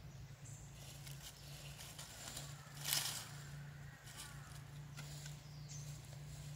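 Dry leaf litter rustling briefly about three seconds in as a macaque forages, over a faint steady low hum, with a few faint chirping calls.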